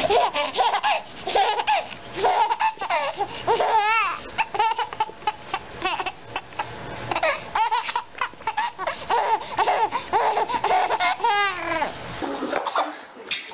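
A baby laughing hard in quick repeated bursts of giggles and belly laughs, the pitch jumping up and down.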